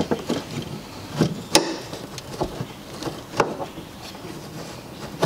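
A car's EVAP canister vent solenoid, a plastic part, being pushed and locked back into its mounting bracket by gloved hands: a handful of sharp clicks and knocks amid rustling handling noise.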